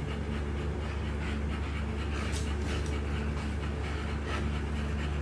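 American Bully dogs panting in quick, rhythmic breaths as they wrestle in play, over a steady low hum.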